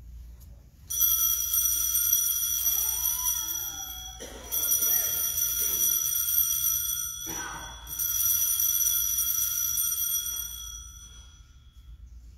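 Altar bells ringing in three rounds, each sustained for about three seconds, marking the elevation of the chalice at the consecration.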